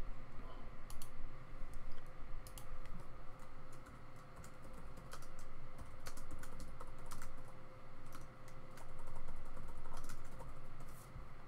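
Typing on a computer keyboard: irregular runs of keystroke clicks, over a faint steady hum.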